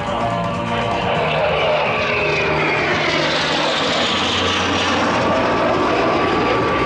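Alpha Jet turbofan engines passing in formation: a loud, steady jet roar with a whine that falls in pitch as the jets go by.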